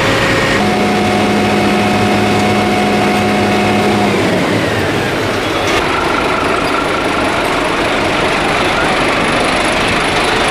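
Fire truck's diesel engine running steadily while its ladder is in use, with a steady hum for the first few seconds.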